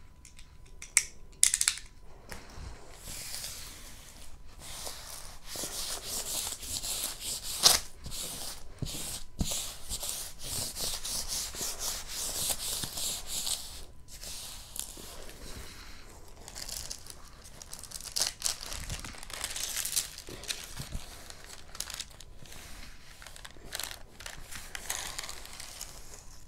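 Crinkling and rustling of a diamond painting canvas and its plastic covering as it is handled and smoothed flat, on and off throughout, with scattered light taps and one sharp snap about eight seconds in.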